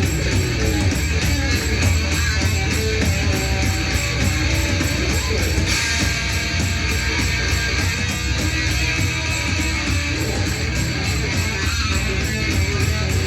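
Hard rock music with distorted electric guitar playing steadily.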